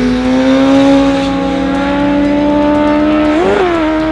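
Sports motorcycle engine running hard, its pitch climbing slowly and steadily, with a quick rise and fall in pitch about three and a half seconds in.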